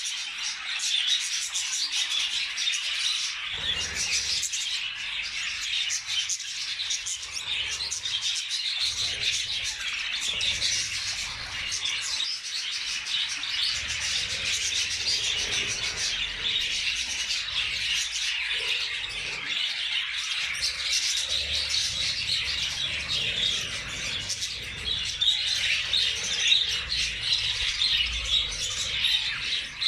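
A flock of budgerigars chattering and chirping without a break, many birds calling at once.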